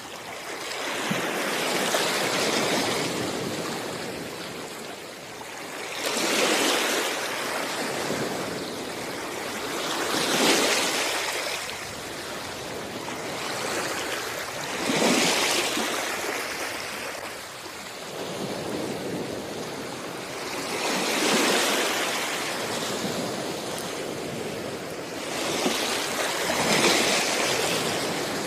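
Sea waves washing onto a beach, with about six surges swelling and falling away, one every four to six seconds, over a steady wash of surf.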